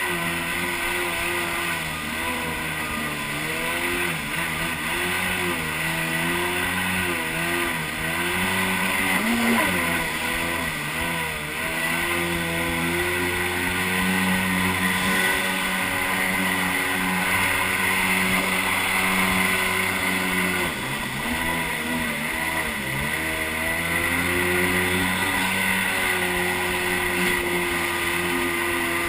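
1991 Kawasaki JS440 stand-up jet ski's two-stroke twin engine running under way, its revs wavering up and down and dropping briefly about a third of the way in and again around two-thirds of the way through, over a steady hiss.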